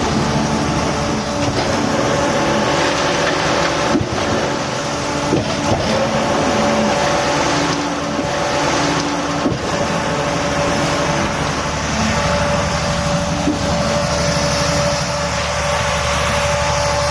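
Concrete mixer pump running while mixing concrete: a steady, loud machine and engine noise with a churning low rumble, broken by a few brief knocks.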